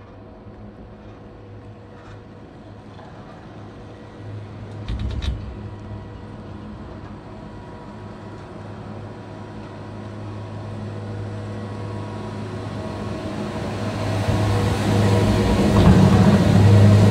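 Ride on a Poma high-speed detachable quad chairlift: a steady mechanical hum with a short clatter about five seconds in as the chair passes over a tower's sheaves, then the hum and rumble of the terminal machinery grow steadily louder as the chair enters the terminal.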